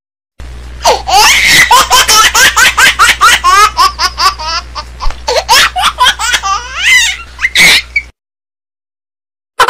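A person laughing hard in quick repeated bursts over a steady low hum. The laughter cuts off about eight seconds in.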